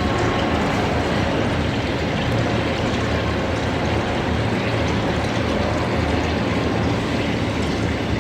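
CNC machine tool running steadily during the cutting of a steel roll: a constant low hum under an even rushing noise.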